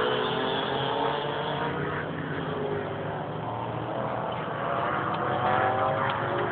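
Small motorcycle engines of kids' flat track bikes running around the dirt oval, their pitch rising and falling as the riders throttle on and off, with more than one engine heard at once.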